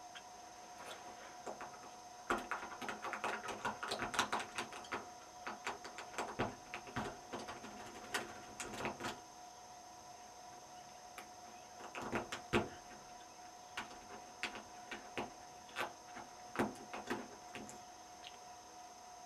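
Lock being picked with a pick and tension wrench: irregular runs of small metallic clicks and scrapes, in two bursts separated by a pause of a few seconds, over a faint steady high hum.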